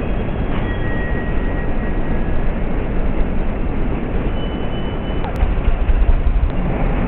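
Steady city traffic noise, with a few brief high-pitched whines.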